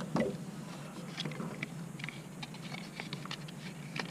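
Irregular light clicks and taps of a fuel pump assembly's parts being handled, over a steady low hum.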